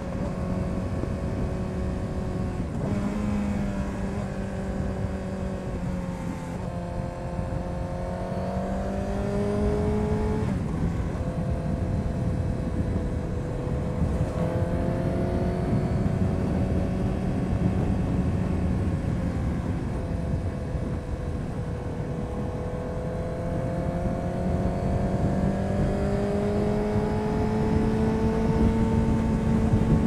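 The inline-four engine of a 2000 Honda CBR929RR Fireblade, breathing through an Erion full racing exhaust, running under way at moderate, fairly steady revs. Its pitch dips and climbs again a few times.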